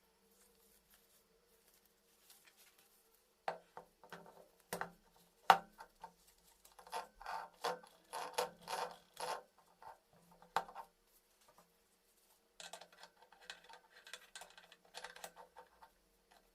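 Hand tools and metal parts clinking, tapping and scraping in an irregular run of workshop handling noises, with one sharp knock about five and a half seconds in, over a faint steady hum.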